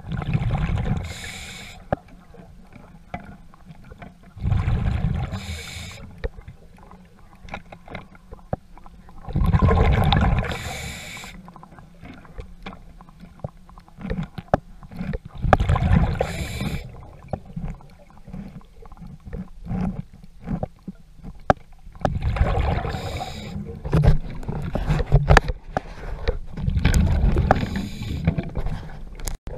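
Underwater recording of a diver's exhaled breath bubbling out in regular bursts, about every five to six seconds, six times. Light clicks and knocks sound between the bursts.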